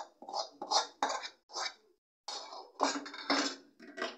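A metal spoon scraping cooked vegetable curry out of a metal kadhai into a steel bowl: a run of short scrapes and clinks on the metal, with a brief pause about two seconds in.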